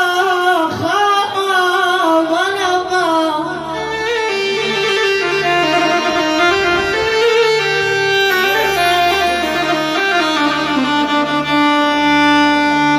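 Instrumental music: a sustained melody line with sliding, ornamented notes over a steady low drone.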